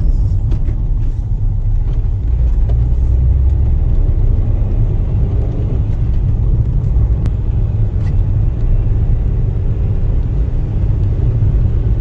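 Car driving steadily over a paving-block road: a constant low rumble of the engine and tyres on the blocks. Two faint ticks come a little after halfway.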